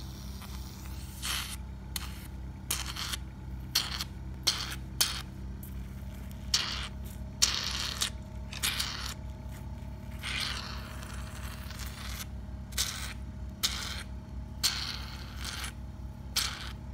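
Suction handpiece of an OMEGA Hydro Peel 2 hydrodermabrasion machine working over wet facial skin: repeated irregular short hissing, scraping bursts as the tip is drawn along and lifted, over a steady low hum.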